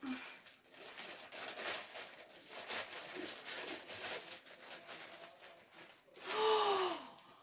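Plastic gift bag crinkling and rustling as fingers pick at the knot tying it shut. About six seconds in, a short voiced sound that falls in pitch, like a sigh.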